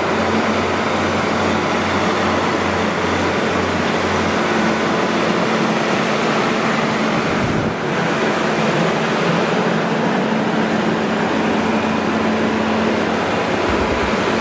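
Detroit Diesel Series 60 inline six-cylinder four-stroke diesel of a Kohler 240 kW generator set running steadily and loud, with a steady low hum under a broad roar of engine and fan noise.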